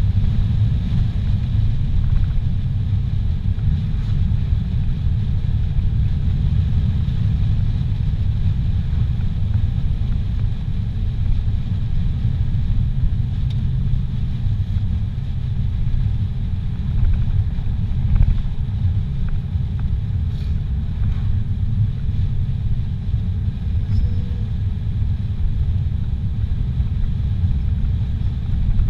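Car cruising on a paved highway, heard from inside the cabin: a steady low rumble of road and engine noise.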